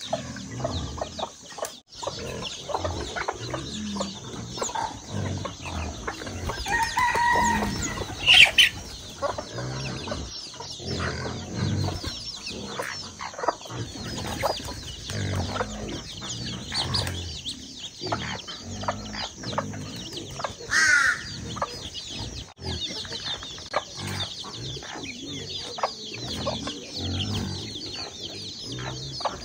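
A flock of chickens: hens clucking and a steady stream of chicks peeping, with two louder calls, one about 8 seconds in and one about 21 seconds in.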